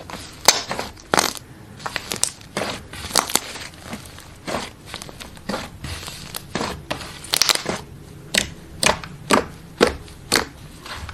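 Slime being pressed and squeezed by hand, giving a run of sharp crackling pops at irregular intervals, roughly two a second.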